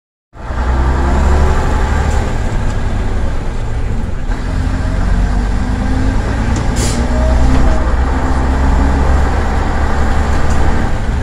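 Leyland Titan PD3 double-decker bus's six-cylinder diesel engine running under way, heard from inside the lower saloon. Its note shifts about four seconds in, and there is a short hiss of air about seven seconds in.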